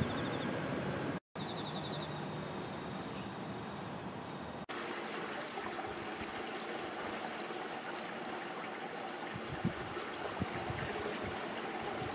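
Steady rushing outdoor noise, like running water or wind. In the first few seconds it has a faint run of high chirps over it, and it drops out briefly about a second in and again after about five seconds.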